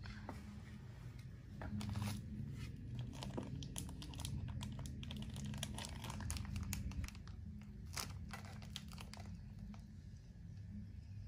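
Plastic crinkling and rustling as it is handled, a rapid run of small crackles and light clicks that thins out near the end, over a steady low room hum.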